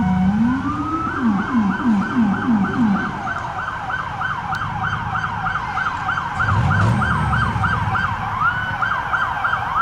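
Police squad car electronic sirens in fast yelp mode: a rapid falling sweep repeating about three times a second. A second, lower-pitched siren yelps along with it for the first three seconds.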